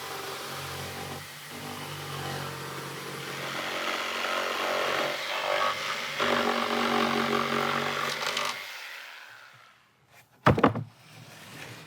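A motor-driven tool running with a steady hum and rough noise, then dying away about eight and a half seconds in, followed by a couple of sharp knocks near the end.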